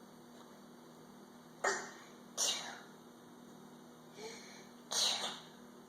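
Toddlers fake-sneezing: short, breathy bursts, two less than a second apart near two seconds in, a faint one about four seconds in and another about five seconds in.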